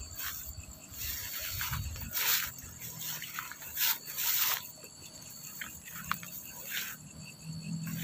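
Footsteps and legs brushing through tall grass and weeds in short swishes about a second apart, over a steady background of chirping insects.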